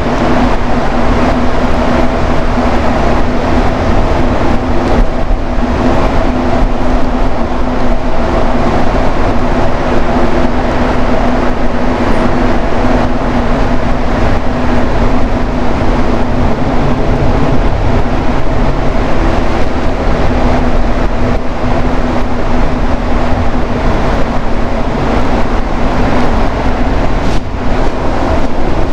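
Montreal metro train running steadily between stations, heard from inside the car: a loud, even rumble from its rubber-tyred running gear with a steady hum over it.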